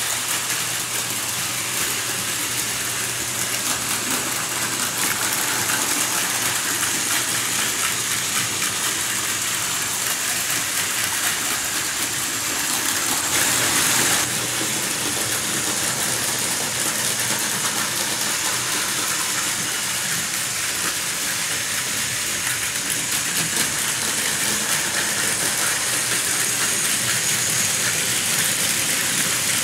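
Several battery-powered Plarail Advance toy trains running on plastic track: a steady whirring, rattling clatter of small motors and wheels, briefly louder about halfway through.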